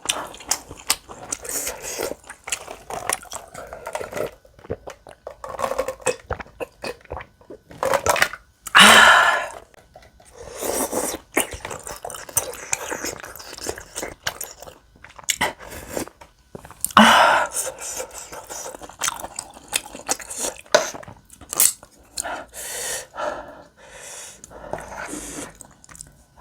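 Close-miked eating: a person chewing and biting spicy tteokbokki rice cakes and beef large intestine, with wet mouth sounds and small utensil clicks throughout. Two louder, longer noisy sounds come about 9 and 17 seconds in.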